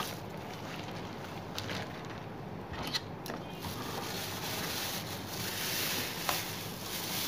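Clear plastic bag crinkling and rustling as hands pull it off a plastic mosquito killer lamp, with a few small handling clicks; the rustling grows louder in the second half.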